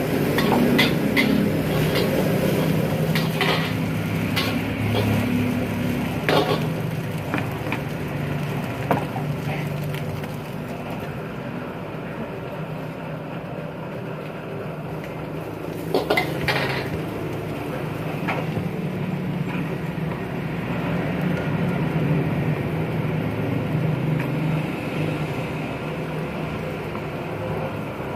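Stir-frying in a large steel wok: a metal ladle scrapes and clanks against the pan every so often, with a few louder knocks, over a steady low hum underneath.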